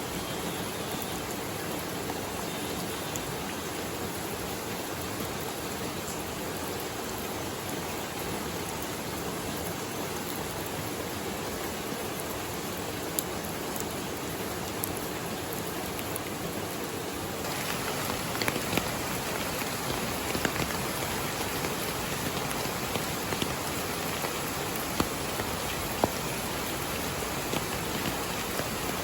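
Steady rain over running water, an even hiss. A little over halfway through the hiss turns brighter and louder, with scattered sharp ticks of individual drops striking.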